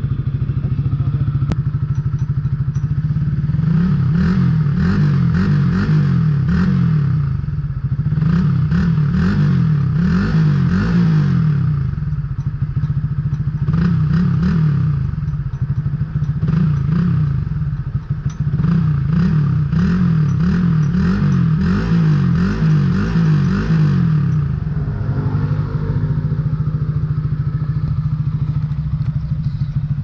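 Honda RS150 single-cylinder engine, fitted with a Suzuki Raider R150 Fi stock muffler, idling and then revved in a long series of quick throttle blips, each rising and falling. Near the end it settles back to a steady idle.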